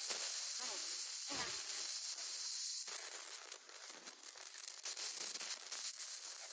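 Dry grass and brush rustling and crackling as a dog and walker move through it, with a louder brief rustle about a second and a half in.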